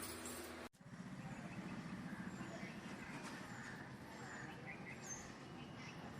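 Outdoor ambience: a steady low rumble with short, high, falling chirps repeating every half second to a second, after a brief dropout just under a second in.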